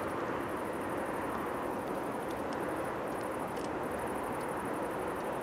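Steady outdoor background noise with no rise or fall, with faint high chirping on top.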